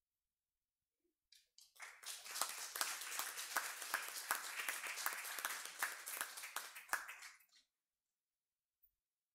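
Small audience applauding for about six seconds, with individual claps standing out. It starts about a second and a half in and stops abruptly near the end.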